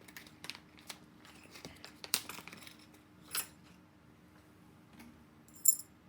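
Small hard parts being handled: a string of light clicks and taps, a sharper clack about two seconds in, and a brief jingling rattle near the end, as of the plastic door-handle pieces and a bag of small screws and grommets.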